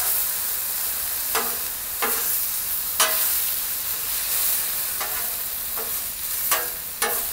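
Chunks of alligator meat sizzling in olive oil on a Blackstone steel flat-top griddle, under a steady hiss. A metal spatula scrapes and knocks against the griddle plate several times as the meat is stirred and flipped.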